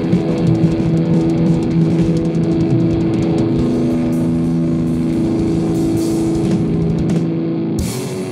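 Rock band playing: electric guitar chords held over busy drumming with cymbals. The deep low end drops out near the end.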